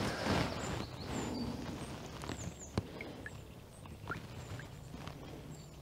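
Brief water splashing as a hand is dipped and wetted in the stream, fading within about a second, then scattered soft taps and dribbles of water while a small trout is handled.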